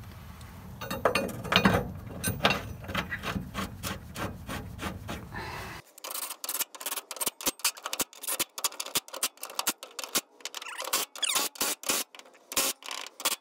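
Steel bolts being fitted to a bolt-on steel mounting plate: metal scraping and clinking as a bolt is started by hand, then a long run of sharp irregular clicks from about six seconds in as a cordless drill with a socket drives the bolts home.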